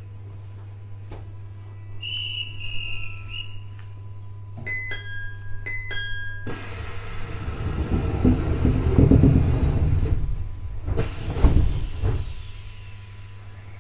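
Inside a JR East E721-series electric train standing at a station: a steady low hum, then the two-note door chime sounds twice about five seconds in, followed by a sudden loud hiss of air and heavy rumbling thumps as the doors work.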